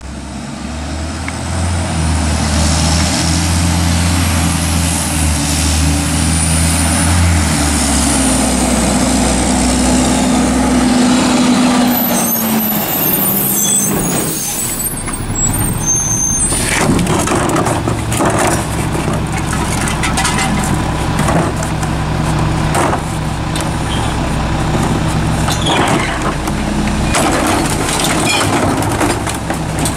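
A Mack MR garbage truck's diesel engine runs as the truck rolls up and slows. A high-pitched squeal and air-brake hiss come as it stops, about halfway through. The engine then idles while plastic trash carts knock and clatter against the McNeilus rear-loader's hopper as they are tipped in.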